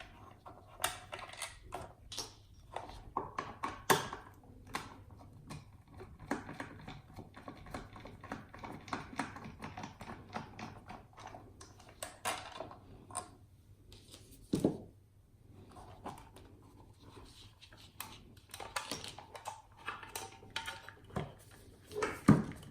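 Hands opening up a homemade Commodore 64 power supply's case and handling it: scattered clicks and light knocks, with a heavier thump about fifteen seconds in.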